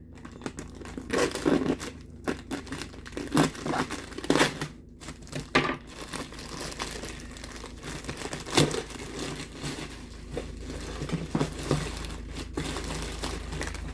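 Packaging being handled and opened: irregular crinkling and rustling with some tearing, in uneven bursts.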